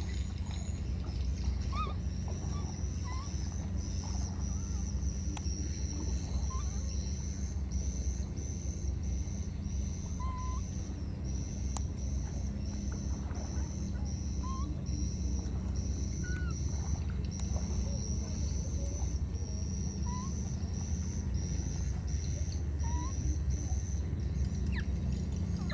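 Outdoor animal ambience: a high pulsing call repeating about once a second, scattered short chirps, and a steady low rumble underneath.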